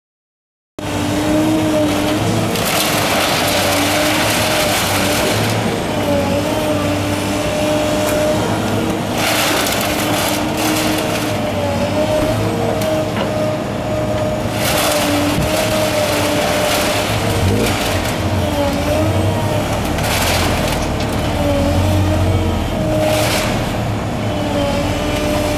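Hydraulic grab of a scrap-handling machine working a skip of small appliances and scrap: the machine's engine and hydraulics run with a wavering whine and low rumble, and the scrap crunches and clatters in several loud bursts as the grab closes on it. The sound starts suddenly about a second in.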